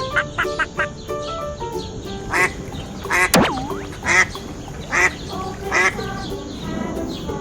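A duck quacking about five times, roughly once a second, over light background music, with a swooping sliding tone midway.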